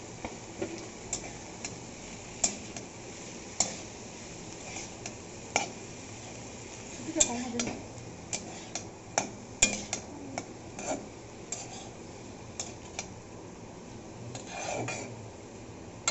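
A metal spatula scraping and knocking against a wok while stir-frying shredded cabbage and potato sticks. Irregular clinks and scrapes come over a steady hiss and are busiest in the middle.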